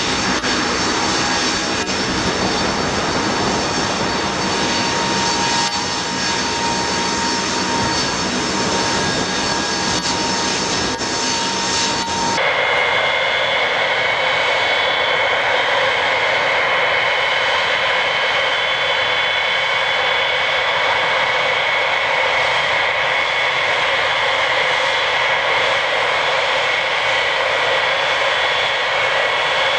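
Jet engines of a Tupolev Tu-154 whining steadily as the airliner taxis. About twelve seconds in, the sound cuts to the four turbofans of a Boeing E-3 Sentry AWACS taxiing, a steady jet whine of a different tone.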